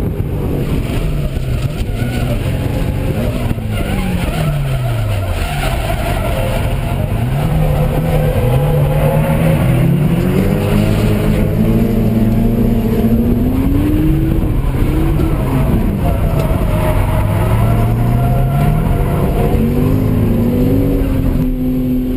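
Nissan Laurel C35's engine heard from inside the cabin while drifting hard, the revs climbing and dropping again and again through the slides, with a deep fall about four to five seconds in and a long high hold in the middle.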